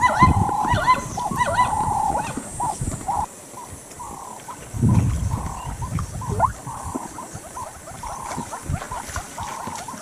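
Plains zebras calling: a run of yelping, barking brays, thick in the first two seconds, then thinner repeated calls.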